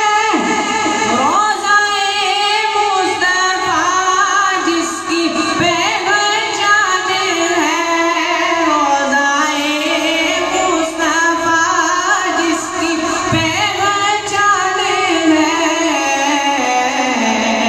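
A boy singing a naat into a microphone, his amplified voice holding long, wavering, ornamented lines.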